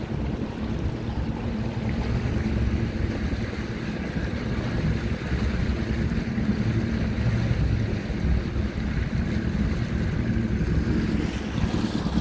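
Boat's outboard motor running steadily at trolling speed, with wind on the microphone and water washing past the hull.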